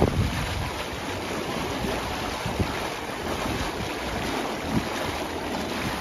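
Hydrotherapy pool jet station churning the water around a seated bather: steady rushing and splashing of water.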